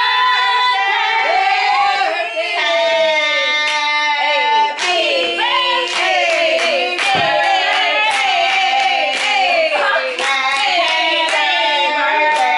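A group of women singing together for a birthday, with hand claps scattered through the song.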